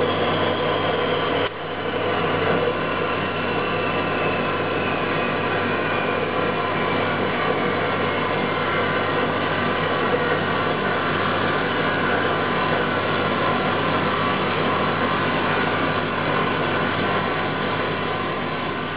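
Emco Turn 120 CNC lathe running: a steady whir from the spindle and axis drives, with a brief dip about a second and a half in and a high whine that slowly falls in pitch over the first several seconds.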